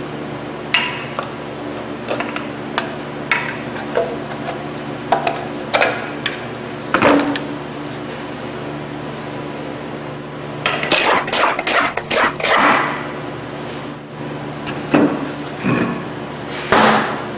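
Scattered metal knocks and clanks as a Ford Ranger's front wheel is taken off: the center cap is knocked free, the lug nuts come off and the wheel is pulled from the hub. A denser run of clatter comes a little past the middle. A steady low hum runs underneath.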